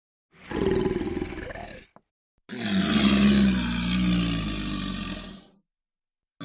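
Two monster roar sound effects, one after the other with silence between: a rough growl of about a second and a half, then a longer, deeper roar of about three seconds that fades out.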